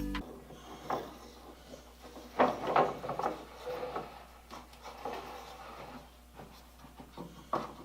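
Workbench handling noises: knocks and rubbing of a wooden vise handle and tools being set up and steadied. The busiest clatter comes about two and a half seconds in, and there is a sharp knock near the end.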